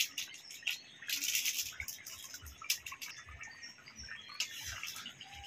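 Rui fish and maan kachu curry boiling in a karai, with scattered popping clicks. A metal spatula stirs and scrapes in the pan in two short bursts, about a second in and again near the end.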